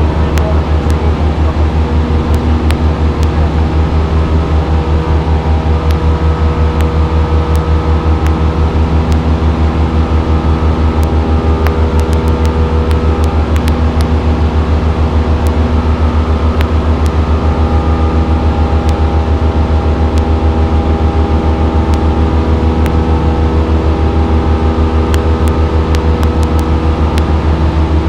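Piston engine and propeller of a light single-engine airplane running steadily in flight, heard inside the cabin as a loud, even drone with a fast regular pulse.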